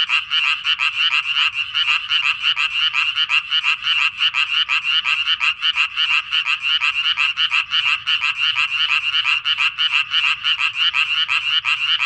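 Japanese tree frogs calling at a breeding pond: a continuous chorus of fast, rasping pulsed calls, strongest in a high band and overlapping without a break. These are males' breeding calls.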